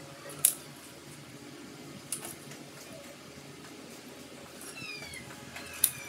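Three sharp knocks as a plastic wire molding strip is handled against a concrete wall: about half a second in, about two seconds in, and loudest near the end. Around five seconds in, an animal gives a few short, high, falling calls.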